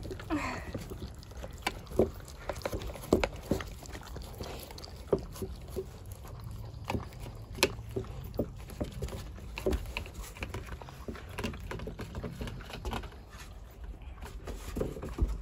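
Shepsky puppies licking and lapping ice cream from their bowls: irregular wet smacks and clicks.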